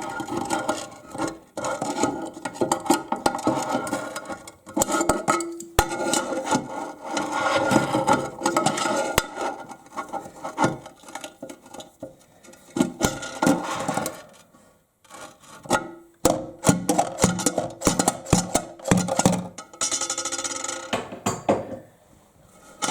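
Hands tightening a nut on a toilet's flush lever: irregular clicks, scrapes and rubbing as the parts knock against the tank, in bursts with short pauses.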